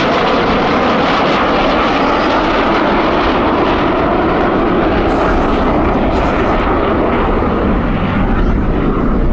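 Loud, steady engine noise of a U.S. Navy F-35C Lightning II's Pratt & Whitney F135 jet engine as the fighter flies its display.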